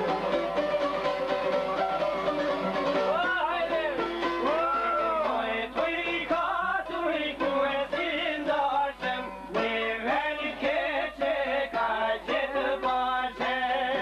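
Albanian folk song: plucked çifteli playing a tune, joined about three seconds in by a man's voice singing long phrases with wide, ornamented slides in pitch.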